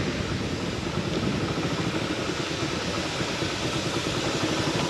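A motor scooter's small engine running steadily, heard from the rider's seat, with an even rush of road and air noise.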